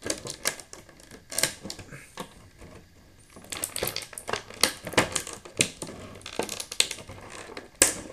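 Clear plastic blister tray of an action-figure box crinkling and crackling as it is handled to free the figure: a run of irregular sharp clicks and crackles, busiest in the second half, with one loudest snap near the end.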